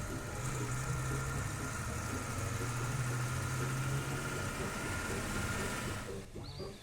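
Camper van engine sound effect running steadily with a low hum, cutting out about six seconds in.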